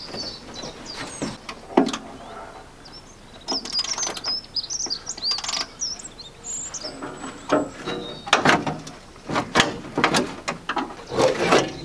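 Small birds chirping and singing, with sharp metallic clicks and knocks of hand tools working on the Land Rover's bodywork fixings. The knocking comes thickest in the second half.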